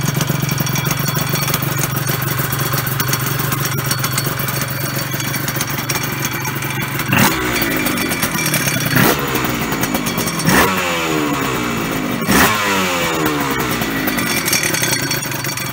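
Honda NSR250 MC21's two-stroke V-twin idling through a Tyga stainless expansion-chamber exhaust with carbon silencers, then blipped four times about every second and a half, each rev dropping quickly back to idle.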